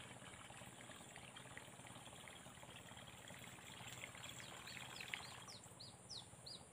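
Near silence: faint outdoor ambience, with a bird's quick run of short falling chirps over the last couple of seconds.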